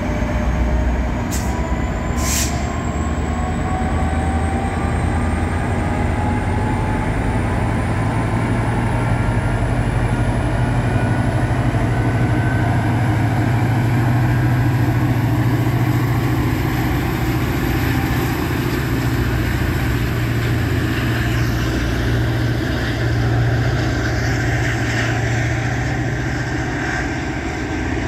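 Caltrain diesel locomotive, an EMD F40PH, pulling away with its train: the engine's steady low drone under a slowly rising whine as it gathers speed. Two short, sharp high sounds come about one and two seconds in.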